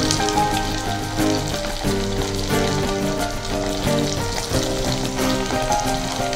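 Batter-coated chicken pieces deep-frying in hot oil in a pan, a steady sizzle and bubbling as more pieces are spooned in. Instrumental background music with a changing melody plays underneath.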